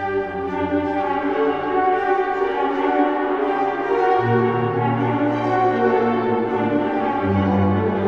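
Ghostly orchestral music: long held chords, the low bass note moving to a new pitch about four seconds in and back again near the end.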